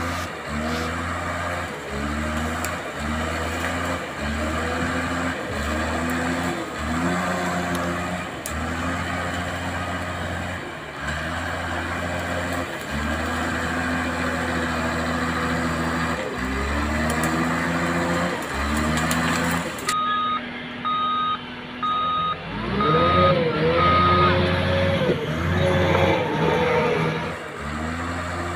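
RC bulldozer driving, its motors and gearbox whining up in pitch in short bursts about once a second as the throttle is worked. Past the middle a reversing beeper sounds about five times, followed by rising and falling revs.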